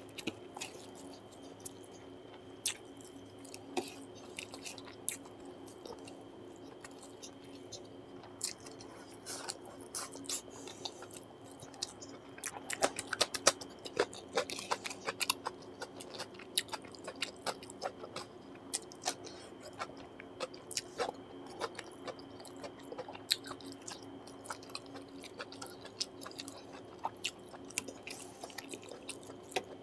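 Close-miked chewing and wet mouth smacks of a man eating rice and chicken liver and gizzard curry by hand, with many sharp clicks, busiest in the middle. A steady faint hum runs underneath.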